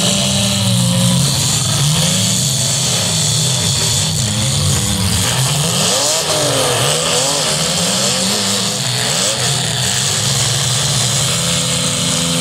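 Demolition derby cars' engines revving hard as the wrecked cars shove and ram each other in the mud. Several engine notes rise and fall over and over.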